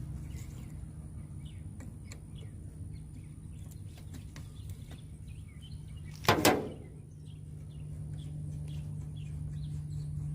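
Faint bird chirps over a steady low hum, with one short, loud scrape or clank about six seconds in, likely from work on the battery terminal.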